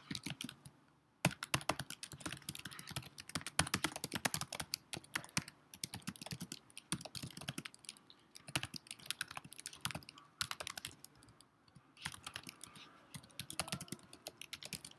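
Typing on a computer keyboard: a quick, irregular run of key clicks that starts about a second in, broken by a couple of brief pauses.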